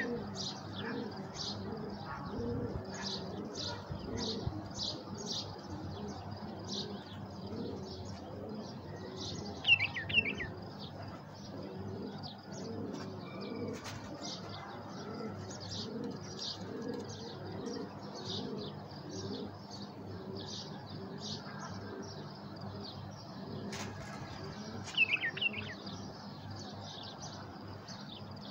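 Birdsong: fast, continuous high chirping with doves cooing underneath, and three louder, quick calls from a tame caller bulbul (one near the start, one about a third of the way in, one near the end).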